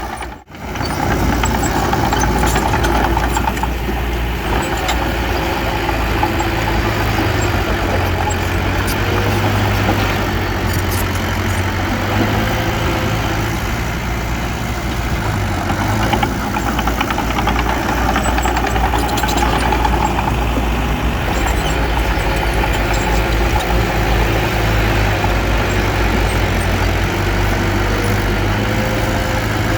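Heavy diesel engine of earthmoving machinery running steadily, its low pitch shifting a little as the load changes. There is a brief gap in the sound about half a second in.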